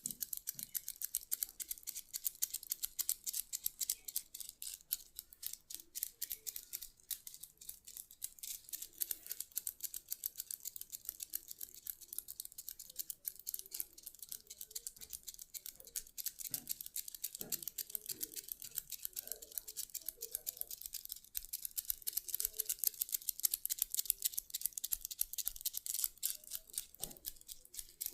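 Close-miked massage work on skin: a fast, dense crackle of tiny scratches and clicks that does not let up.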